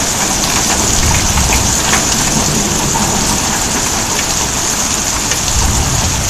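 Heavy rain mixed with hail, pelting down in a steady hiss with a few scattered sharp ticks.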